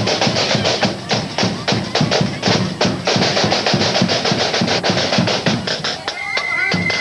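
Marching band's snare drums playing a fast, dense beat of strokes and rolls with low drum beats under it; about six seconds in, flutes come in with a high held melody.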